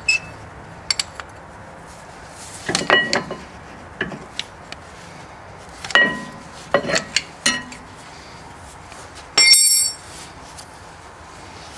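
Hand wrench clicking and clinking against the metal fittings and bolts of a car's rear brake caliper as it is removed, in scattered clusters of sharp clicks. A short, bright metallic ring comes about nine and a half seconds in.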